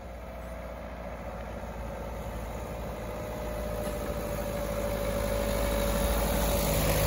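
A car engine approaching, getting steadily louder, with a steady engine whine over a low hum.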